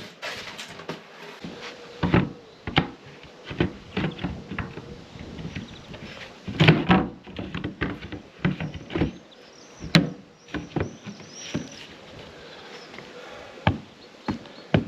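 A round cover of old wood being set and shifted over a circular deck opening, with irregular wooden knocks, clunks and scrapes. The loudest knocks come about seven and ten seconds in.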